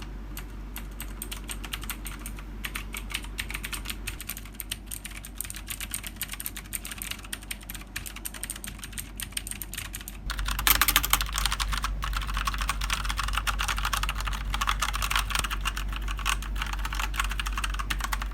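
Typing on a Tecware Phantom TKL mechanical keyboard with Outemu switches: a fast, dense stream of key clicks that gets clearly louder about ten seconds in.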